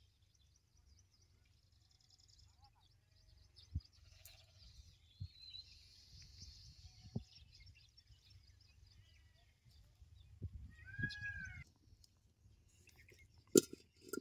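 Mostly quiet, with a few sharp knocks, the loudest near the end, and a short animal call about eleven seconds in.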